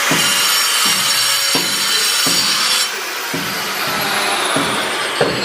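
Electric power tool cutting slate stone, a steady high whine that drops away about three seconds in, then falls in pitch as the tool spins down. Repeated knocks sound through it.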